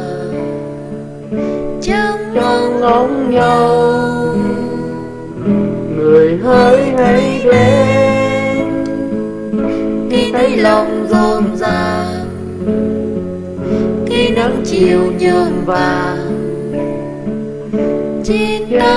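A song: a voice singing over strummed acoustic guitar.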